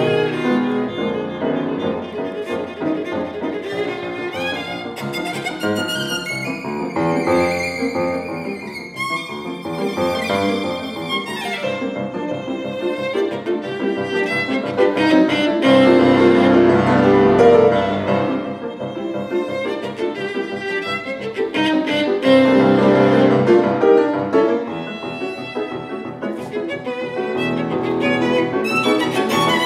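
Violin and grand piano playing a piece together live, the bowed violin line over the piano accompaniment. The music swells louder about halfway through, then eases back.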